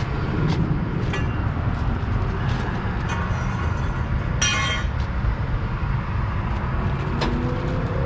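Steady low rumble of outdoor background noise with a few light knocks, and a brief high squeak about four and a half seconds in.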